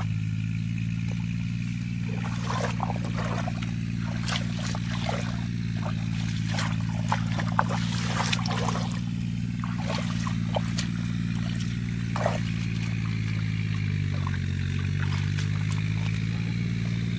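An engine running steadily, its pitch dipping for a moment about fourteen seconds in before recovering, with water trickling and splashing over it.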